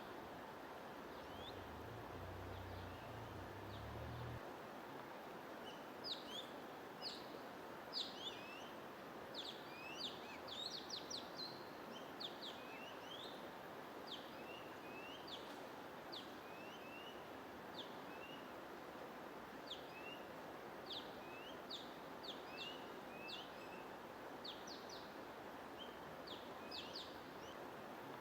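Small birds chirping over and over, short quick high chirps coming in clusters, over a steady even rushing noise. A low rumble sounds for a couple of seconds near the start.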